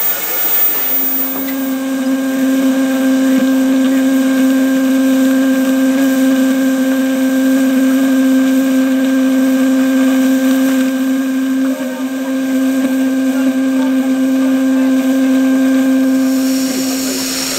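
Steam locomotive whistle blown in one long, steady note lasting about sixteen seconds, starting about a second in.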